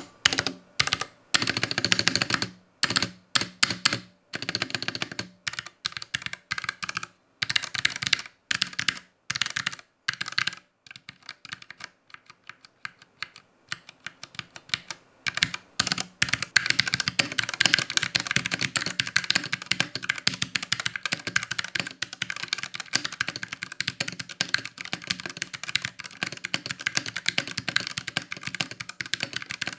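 Ducky One 2 Mecha Mini 60% mechanical keyboard with Cherry MX Silver linear switches and thick PBT keycaps being typed on as a sound test. It starts as clusters of separate key presses, then becomes fast, continuous two-handed typing from about halfway in. The strokes sound solid, with a slight, low bell-like ring after each key is released.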